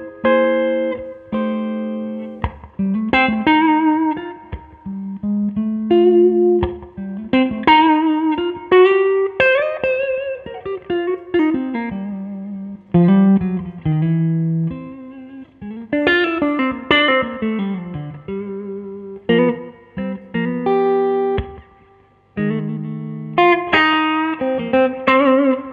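Solo electric blues guitar lead: an SVL Strat-style guitar played through a Two-Rock Classic Reverb Signature valve amp, in single-note phrases with bent notes and held notes, separated by short pauses.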